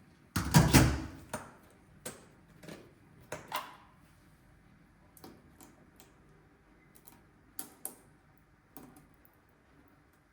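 Kitchen handling sounds: a loud clatter near the start, then a string of scattered clicks and knocks that thin out.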